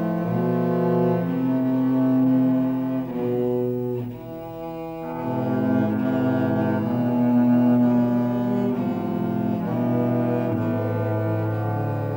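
Trio of cellos playing a slow classical piece in held, bowed chords. The notes change about every second. About four seconds in the playing thins and softens, then swells back to full chords a second later.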